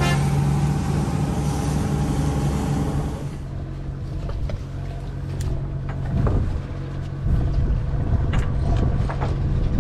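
Party boat's engine running with a steady low hum. About three seconds in the sound changes at a cut; the hum carries on with a rougher rumble and scattered light clicks and knocks.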